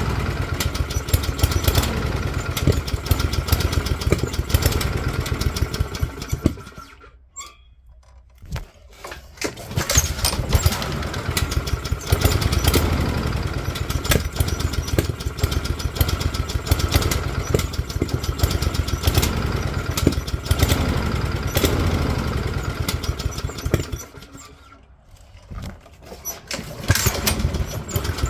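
Honda GCV160 lawnmower engine running unevenly, fluttering in RPM. Twice, about a quarter of the way in and near the end, it almost dies away for a couple of seconds and then picks back up. This is the RPM fault the owner cannot diagnose: the engine flutters massively and cannot get above about 800 rpm.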